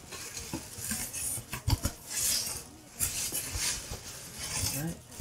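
Cardboard shipping box being handled and opened: the cardboard scrapes and rustles in bursts, with two sharp knocks a little under two seconds in.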